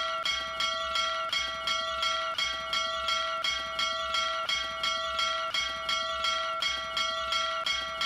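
Small brass bell rung by pulling its clapper rope, struck again and again in a rapid, even rhythm, its several ringing tones carrying on between strikes.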